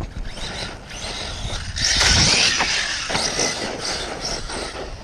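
Arrma Kraton 6S RC truck setting off on loose ground: a gritty rush of tyres and flung dirt that is loudest about two seconds in, with wind on the microphone underneath.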